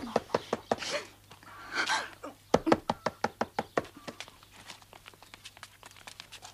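A rapid, even series of sharp knocks, about six a second, louder in two stretches and fading toward the end.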